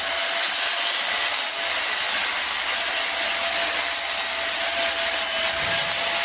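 A power tool running steadily: an even, hissing noise with a faint steady whine underneath.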